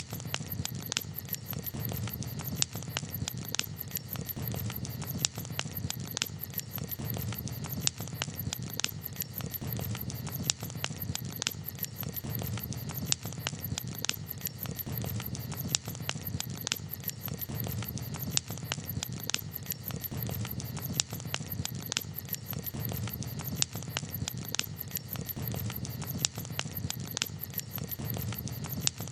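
Campfire crackling: frequent sharp pops and snaps over a low, steady rumble of the burning wood.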